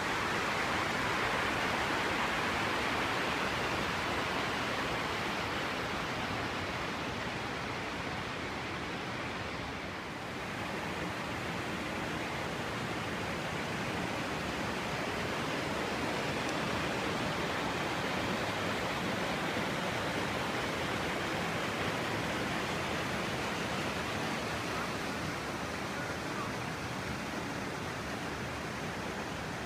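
River water rushing over flat rock slabs in shallow rapids and small falls, a steady hiss of flowing water.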